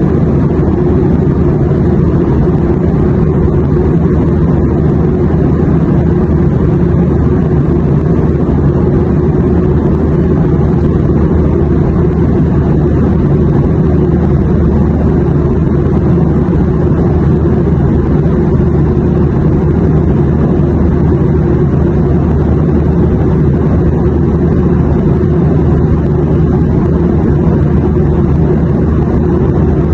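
Steady low drone of airplane noise, an unbroken rumble used as white noise, with no changes or separate events.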